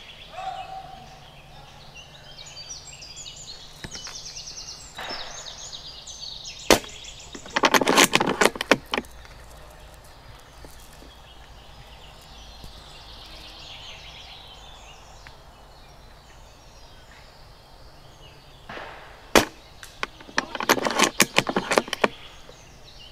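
Spring-powered L96-type bolt-action airsoft sniper rifle fired twice, each sharp shot followed about a second later by a quick run of clicks as the bolt is worked back and forward to re-cock it.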